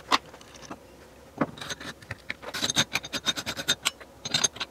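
Machined aluminium engine-case parts handled on a workbench: a few light knocks, then from about two and a half seconds in a quick run of light metallic clicks with a faint ring, and a few more clicks near the end.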